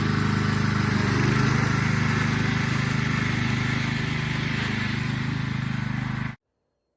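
Riding lawn mower engine running steadily while the mower is driven, cutting off abruptly about six seconds in.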